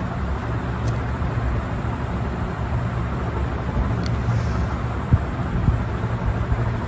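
Steady low background hum and rumble, with no clear event in it.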